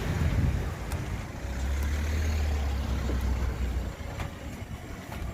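Low, uneven rumble of wind buffeting the microphone, strongest from about one and a half to four seconds in.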